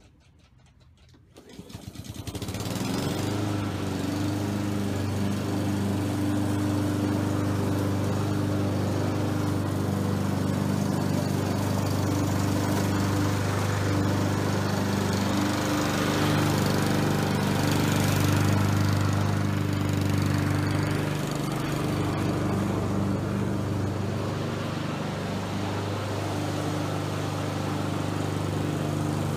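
A Honda HRR216 self-propelled mower's single-cylinder four-stroke engine, pull-started, catching about a second and a half in and rising quickly to speed. It then runs steadily while mowing, its pitch shifting slightly about two-thirds of the way through.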